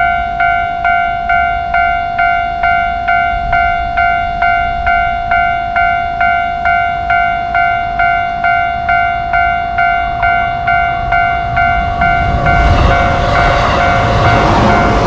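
Japanese level-crossing alarm ringing its repeated electronic 'kan-kan' bell tone, a little over two strikes a second. About twelve seconds in, the rumble of a JR Nambu Line train arriving swells up under the bell.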